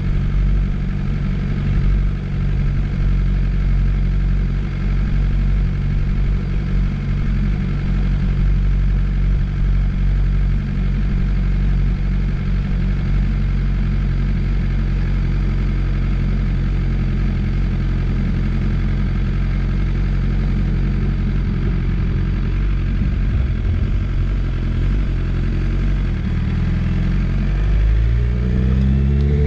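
BMW S1000RR's inline-four engine idling steadily. Near the end its pitch starts to rise as the bike accelerates away.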